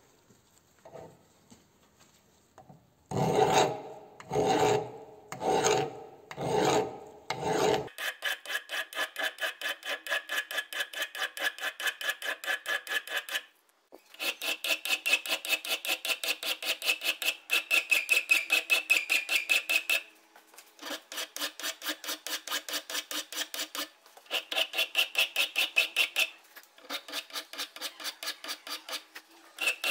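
File strokes on the steel of an axe head: five slow, heavy strokes, then quick back-and-forth strokes at about four a second with a ringing metallic tone, in runs broken by short pauses.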